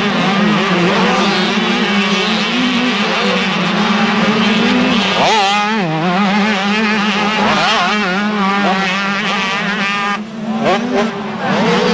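Several motocross dirt bikes racing, their engines revving up and down in overlapping rising and falling whines as riders take the jump and pass, over a steady low drone of engines. The sound dips briefly near the end.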